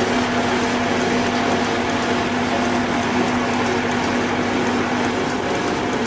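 Engine of a tree-cutting telehandler running steadily: an even mechanical drone with a constant low hum.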